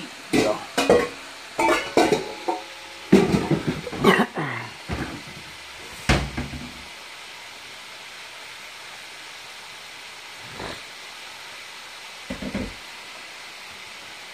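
A stainless steel bowl and pan lids clatter and knock against the counter and stovetop for several seconds, over the steady sizzle of chicken wings deep-frying in a pot of oil. After that the sizzle goes on alone, with a couple of soft knocks near the end.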